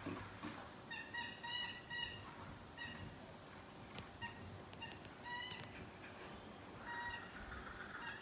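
Kookaburra calling: short, clear chuckling notes in quick little runs, the densest about a second in, then further runs near three, five and a half and seven seconds.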